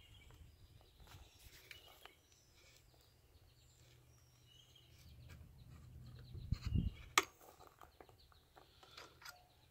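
Outdoor ambience with birds chirping, and a few sharp metal clicks from a hand tap and T-handle wrench as threads are chased in an aluminium engine block. A low thump and the loudest click come about seven seconds in.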